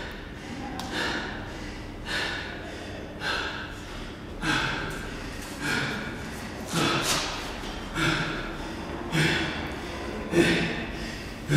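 A man breathing hard and fast, one loud, rasping breath about every second, catching his breath after a hard set.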